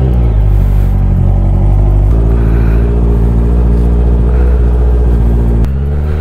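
A Honda inline-four motorcycle engine catches on a cold start and runs loud and steady at idle. Near the end the note drops, then begins to rise.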